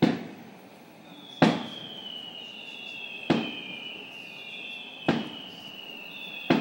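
Aerial fireworks shells bursting in a display: five sharp booms about every one and a half to two seconds, each ringing out after it. High whistling tones slide slowly downward between the booms.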